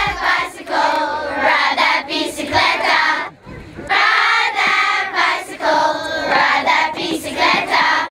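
A crowd of children singing or chanting together in unison, in short phrases with little or no beat under them, with a short break a little past three seconds. The voices cut off suddenly at the end.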